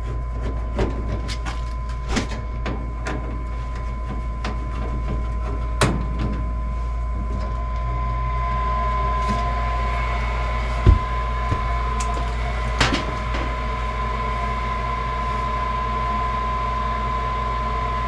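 Steady mechanical hum from the gas furnace, with scattered clicks and knocks as its sheet-metal front cover panel is unscrewed and lifted off. There is one louder thump about eleven seconds in.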